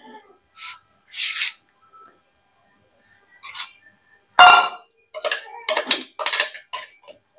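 Steel spoon scraping and clinking inside a stainless-steel mixer-grinder jar and against steel bowls, scraping out freshly ground chutney. There is one loud knock about four and a half seconds in, then a quick run of scrapes and clinks.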